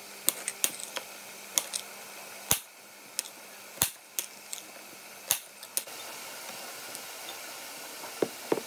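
Chef's knife chopping a red bell pepper into chunks, the blade knocking on the chopping board in irregular sharp taps, about a dozen over six seconds, then a few lighter taps near the end.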